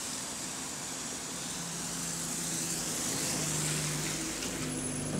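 Bus AL ENL74 pulling in close alongside, its diesel engine note growing louder as it nears. A hiss of tyres on the wet road swells and rises in pitch as it passes.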